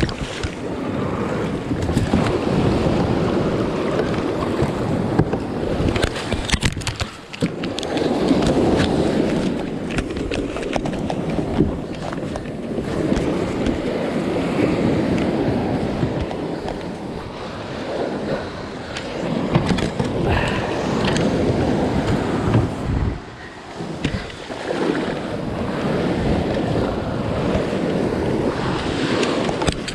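Wind buffeting the microphone over waves and moving water, rising and falling in surges, with a few sharp knocks around six to seven seconds in.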